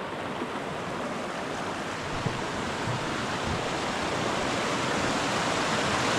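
Mountain stream rushing over rocks, a steady hiss of water that grows gradually louder.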